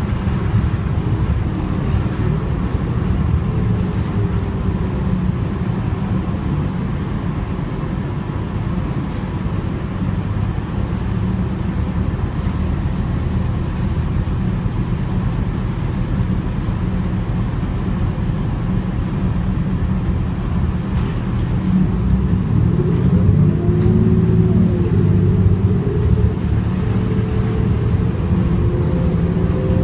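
Inside a New Flyer Xcelsior XN40 natural-gas city bus under way: steady engine and road rumble, with a whine that rises and falls in pitch during the last several seconds.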